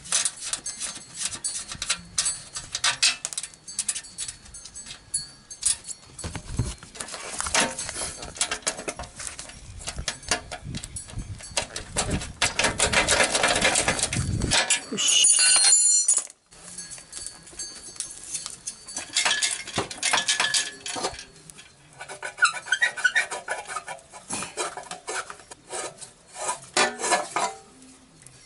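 Hand work on a motorcycle's exhaust: rubbing of a work glove on the frame, then irregular clicks and metal clinks of a wrench on the muffler's mounting bolt. There is a dense rattling stretch about halfway through, followed by a brief metallic ring.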